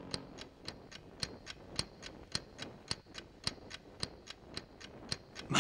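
Steady, even ticking like a clock, about three and a half ticks a second.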